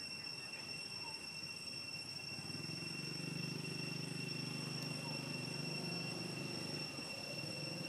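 Outdoor ambience: a steady high-pitched whine throughout, and a low droning hum that swells about two and a half seconds in and fades shortly before the end.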